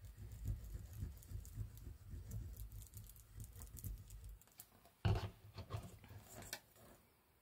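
Hands working paper pieces on a craft table: a quick run of soft rubbing taps, then a sharp click about five seconds in followed by a few lighter clicks.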